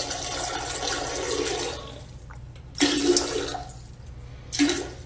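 A French bulldog urinating into a toilet bowl: a steady splashing stream into the water for about two seconds, then two short spurts.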